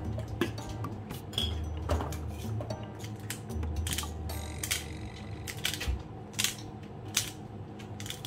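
A run of sharp clicks and taps at a meal table, irregularly spaced, the loudest two a little after the middle, over quiet background music.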